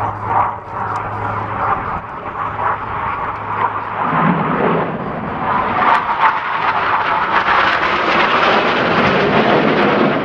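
BAE Hawk jet trainer's Rolls-Royce Turbomeca Adour turbofan rushing overhead during an aerobatic display. It swells about four seconds in and is loudest in the second half.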